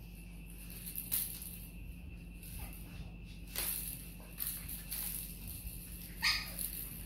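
Boston Terrier puppies playing at hanging toys: scattered short snuffles, rustles and knocks, with one brief high squeak falling in pitch about six seconds in.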